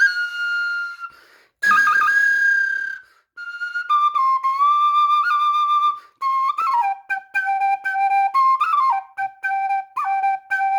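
Handmade bird flute playing a melody of clear, whistle-like notes with quick grace-note flicks, in phrases broken by short breaths. The tune steps down in pitch and settles in the second half on a repeated low held note.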